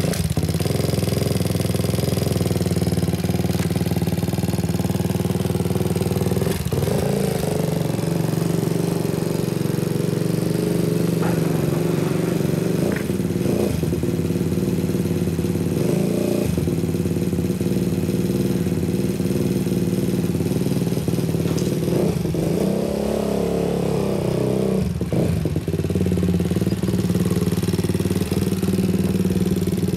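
Honda Monkey with a Takegawa 107 cc four-stroke single-cylinder engine, running through an OVER Racing exhaust. It holds mostly steady, with a few changes in engine speed.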